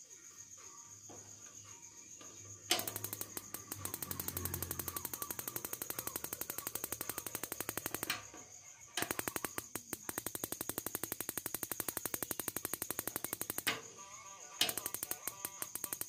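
The battery-powered pulse igniter of a Niko gas water heater sparking with rapid, even clicks, in three bursts of several seconds each, as the unit is tried on LPG with its safety switch jumpered out.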